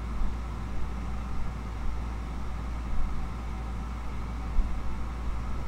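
Steady low machine hum with an even hiss.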